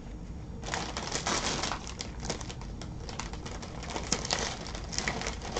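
Crinkly rustling of a bag as folded sheets of scrapbook paper are pulled out of it: a run of irregular crackles that starts just under a second in.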